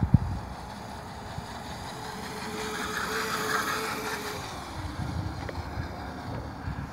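Small children's dirt bike passing close by: its motor whine grows louder, then drops in pitch as the bike moves away after about four seconds. A sharp thump at the very start.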